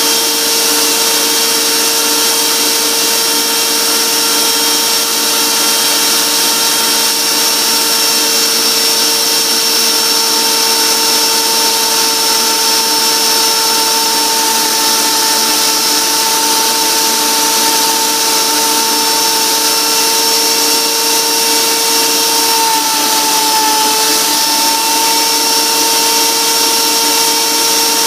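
Power tools running steadily as a crude homemade lathe and a die grinder with a router bit cut a Corian knob blank: a constant high machine whine over grinding noise. Its pitch sags briefly about two-thirds of the way through, then comes back up.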